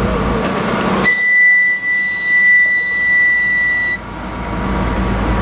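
A high, steady whistle tone sounds for about three seconds aboard a TEP60 diesel passenger locomotive, starting about a second in and cutting off sharply. The locomotive's running rumble is heard before and after it.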